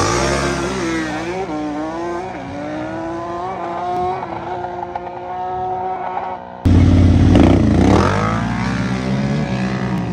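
Can-Am Renegade X xc quad and a rival ATV launching at full throttle from a standing start, engine pitch climbing and stepping up through gear changes as they pull away down the road. About two-thirds in, a sudden cut to a louder, closer engine revving, its pitch dropping and then climbing again.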